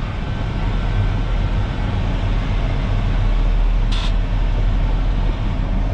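Dump truck's diesel engine running steadily as the truck drives slowly into the yard, with a short hiss about four seconds in.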